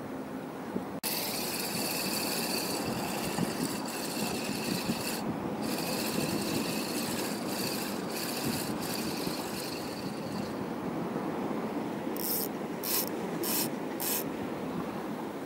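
Spinning reel being cranked on a lure retrieve: a steady whirring rasp from the gears and line roller that starts suddenly, pauses briefly about five seconds in and stops near ten seconds. Four short bursts of hiss follow near the end.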